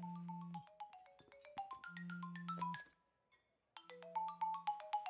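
Mobile phone ringing: a ringtone of quick runs of short, bright notes over a low held tone. It breaks off about three seconds in and starts over about a second later.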